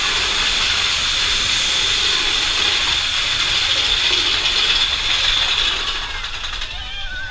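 Mine-train roller coaster running through a fog-filled cave: a loud, steady mechanical clatter of the train and track mixed with hissing. It drops away about six seconds in as the train comes out into the open, and ride music comes in near the end.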